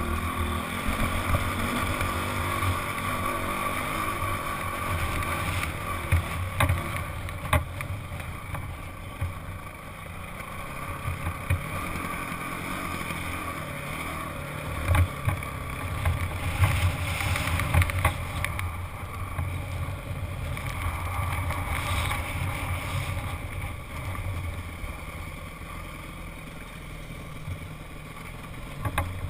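Honda CRF dirt bike's single-cylinder four-stroke engine running as it is ridden over bare rock, the throttle rising and easing off, with wind on the microphone and occasional sharp knocks.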